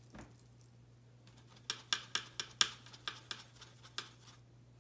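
Watercolour brush tapping and scrubbing in the plastic wells of a paint palette while mixing dark green: a run of quick light clicks, about four a second, starting about a second in.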